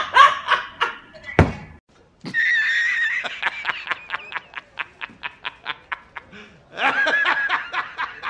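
A man laughing hard: a high, held laugh, then a fast run of short 'ha' bursts, about five a second, and another long laugh near the end. Before it, a different man laughs briefly, and there is a single thump about one and a half seconds in.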